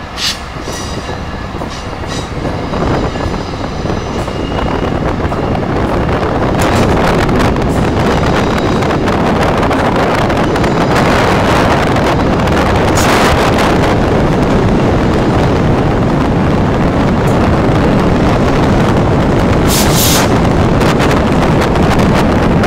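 Amtrak passenger train moving through the rail yard: a steady, noisy rumble of wheels on rail that builds over the first six seconds and then holds. A thin, high wheel squeal shows in the opening seconds.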